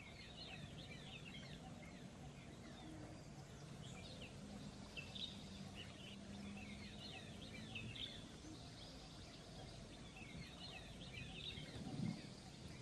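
Faint small birds chirping in quick, high clusters over a steady low background noise, with one brief louder low sound near the end.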